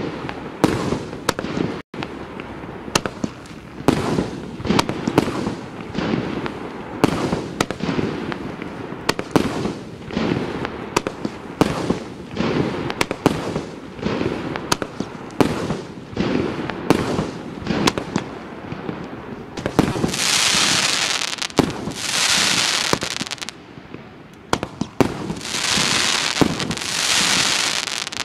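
Consumer firework cake (Вогнеграй СУ 07-50, 50 shots of 20–40 mm calibre) firing a steady run of launch thumps and aerial shell bursts, roughly one to two a second. In the last third, two stretches of dense hiss of two to three seconds each ride over the shots.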